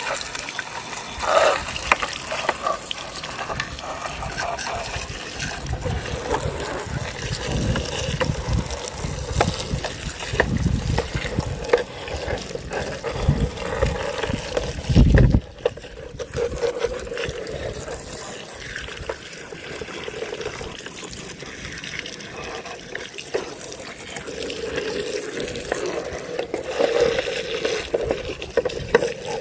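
Running water splashing and gushing as a muddy toy vehicle is rinsed and washed clean, with uneven surges and a louder thump about halfway through.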